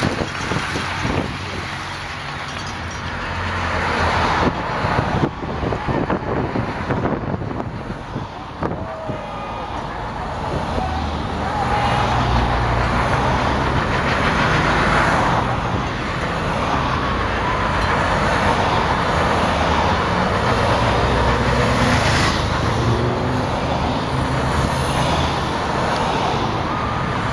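A pack of road racing bicycles rushes past in the first few seconds. From about ten seconds in, a line of race support cars and a police car drive by, with a steady engine hum and tyre noise.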